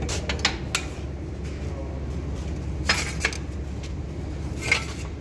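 Sharp metallic clinks of a hand tool against the steel brake rigging of a VL10 electric locomotive, in small groups: a few just after the start, two around three seconds, one near the end. Under them is a steady low hum.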